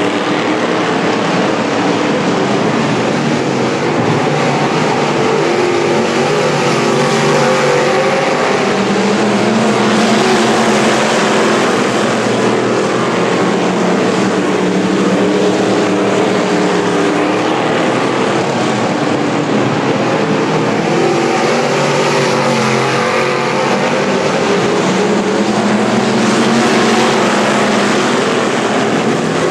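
Several modified hobby stock race car engines running at speed together on a dirt oval, a continuous loud sound whose pitch rises and falls gradually as the field goes around.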